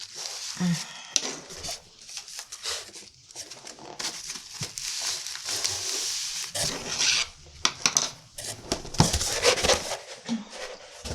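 Packaging and sticker books being handled during an unboxing: irregular rustling and crinkling, with small taps and knocks in between.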